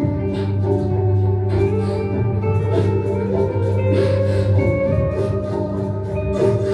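Live ambient jam music: a steady low drone under layered held tones, with scattered light percussive hits.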